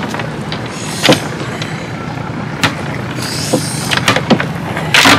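A steady, engine-like low hum with several sharp knocks and two short hissing stretches.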